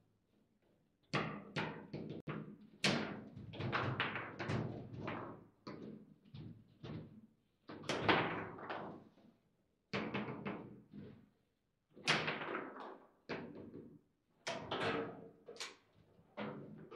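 Table football play: the hard ball clacking off the plastic figures and the table's walls as the rods are worked, in irregular sharp knocks, some coming in quick flurries with brief pauses between rallies.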